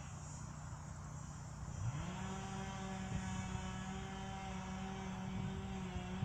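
A tree crew's small engine-powered equipment running at a distance. It is backed off at first, revs up about two seconds in, and then holds at a steady high pitch.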